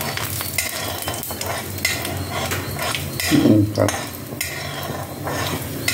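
Urad dal sizzling in hot oil in a steel kadai, stirred and scraped repeatedly with a metal spatula as it is fried toward golden for a tempering.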